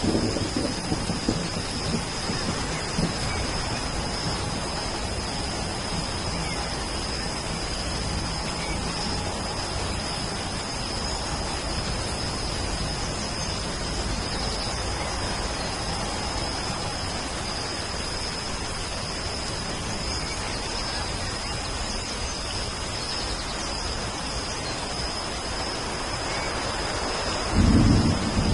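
Steady rain with rolls of thunder: a low rumble dies away in the first second or so, and a louder one starts near the end. A thin, steady high tone runs under the rain.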